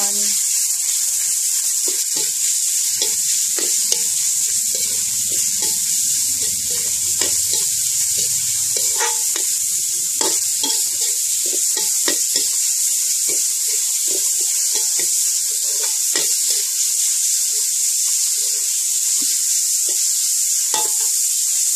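Minced pork sizzling in a metal wok as it is stir-fried, the metal spatula scraping and knocking against the pan again and again over a steady high hiss of frying.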